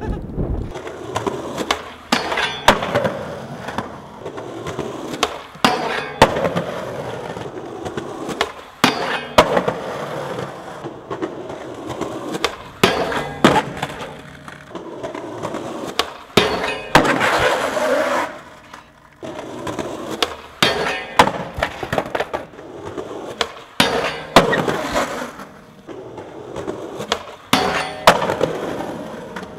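Skateboard on concrete: urethane wheels rolling, broken by many sharp pops and clacks of the board on tricks and landings. Around the middle the board clatters away on a bail.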